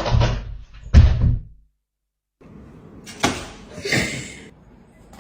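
Two heavy thuds about a second apart, then after a short silence two lighter knocks, the second with a brief rustling scrape.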